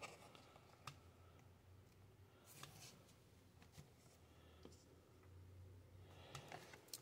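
Near silence: room tone with a few faint scattered clicks and taps, and a faint rustle near the end.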